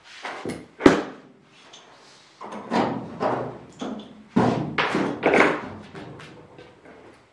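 Tools and parts being handled on a workbench: a sharp knock about a second in, then two bouts of clattering and rattling.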